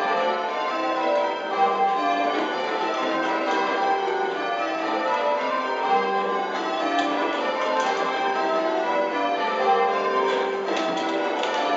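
Ring of eight church bells rung full circle in change ringing, a spliced surprise major method: a steady, even succession of bell strikes, each bell sounding in turn with the tones overlapping.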